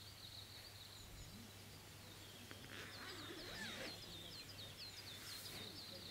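Faint outdoor ambience with a small songbird singing: runs of short, high chirps repeated about five times a second, louder in the second half.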